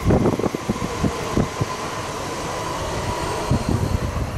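DB class 440 (Alstom Coradia Continental) electric multiple unit passing close by, with a steady electric whine over irregular low rumbling thumps.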